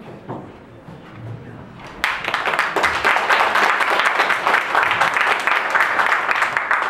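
Audience applauding, breaking out suddenly about two seconds in as dense, even clapping that holds to the end.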